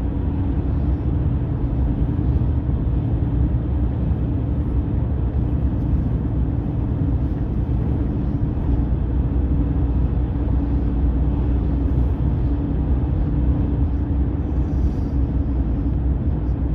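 Steady low rumble of a moving vehicle, with a constant droning hum that does not change.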